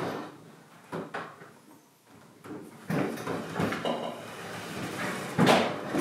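Refrigerator being pushed back into place across a tile floor: a series of sliding noises and knocks, the loudest a sharp knock about five and a half seconds in.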